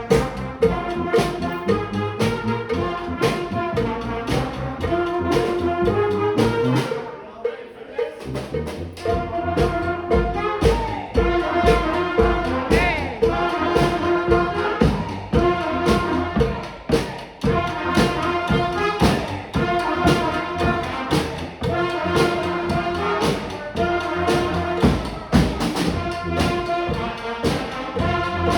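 Street brass band playing: trumpets and trombones holding notes over a steady drum beat. About seven seconds in, the drums and low brass drop out for about a second, then the full band comes back in.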